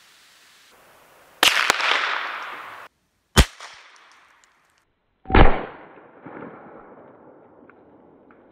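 Suppressed .22 LR rifle firing a CCI segmented hollow point: a loud, sharp supersonic crack about a second and a half in, as the round breaks the sound barrier despite the suppressor, with a long fading tail. Two more sharp reports follow, about two and four seconds later.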